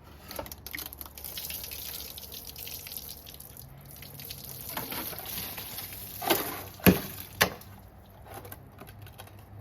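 Water splashing and trickling over an iced-over bird bath, with three sharp knocks in the second half.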